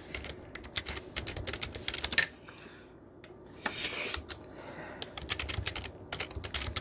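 Typing on a keyboard: quick, irregular keystroke clicks, with a short pause about two and a half seconds in.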